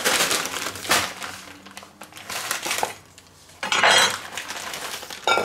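Kitchen handling sounds: a metal knife clattering onto a wooden chopping board, with a couple of sharp knocks, and a plastic bag of mixed mushrooms rustling and crinkling for about a second near the end.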